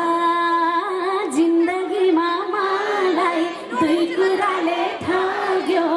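A woman singing a Nepali dohori folk song live into a microphone. She holds a long steady note at the start, then moves through wavering, ornamented turns.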